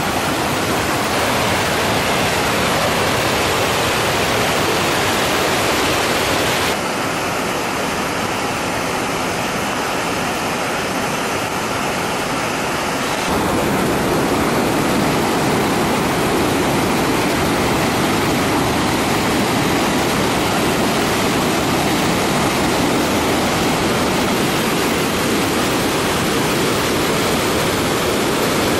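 A creek in flood rushing through rocky rapids, a loud, steady noise of fast-flowing floodwater. Its level and tone change abruptly twice, about a quarter and about halfway through.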